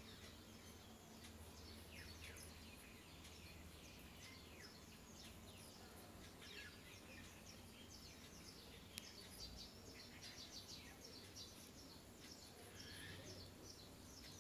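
Near silence, with faint, quick, high chirps from small birds scattered throughout.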